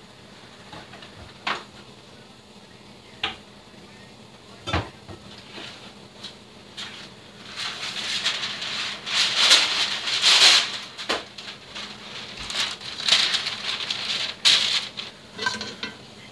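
Baking-soda pretzel brine boiling hard in a pot around a pretzel. A few sharp knocks come in the first five seconds, then from about eight seconds in louder hissing, splashing bubbling that surges and fades.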